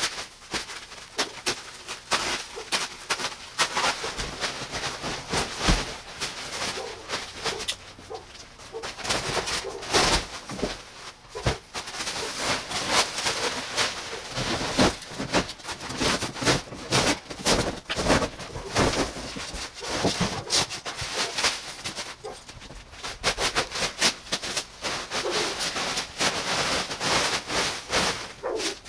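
Plastic stretch wrap and cardboard being cut and torn off a gun safe: dense, irregular crackling and crinkling, with the odd short squeak as the film is stretched and peeled away.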